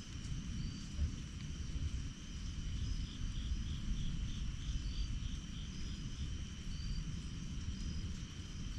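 Evening insect chorus of steady high trills and a short chirp repeated about every second, with a run of quick pulsing calls in the middle. Low, uneven noise runs underneath.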